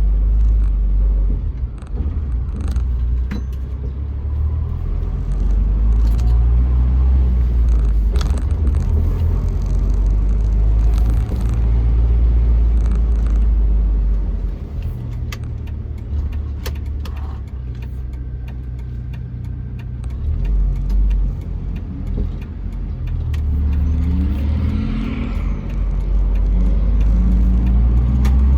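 1999 Jeep Wrangler TJ being driven: a low engine and road rumble that swells and eases as it pulls away and picks up speed, with light clicks and rattles over the top. No clunk is heard from the freshly repaired rear lower control arm.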